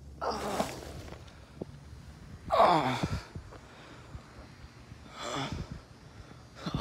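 A man gasping and groaning: three breathy cries with a falling pitch, about two and a half seconds apart, the second the loudest.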